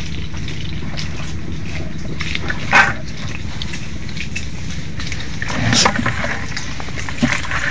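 Crackling and rustling of mangrove twigs and leaves with squelching steps in the mud, over a steady low rumble. A louder snap comes about three seconds in, and another louder burst of movement just before six seconds.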